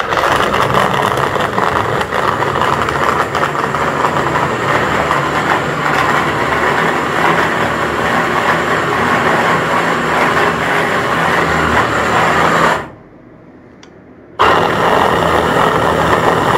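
Scarlett hand blender on its chopper bowl attachment, the motor running at full speed as the blade minces raw meat with onion. It starts suddenly, stops about thirteen seconds in, and starts again after a pause of about a second and a half.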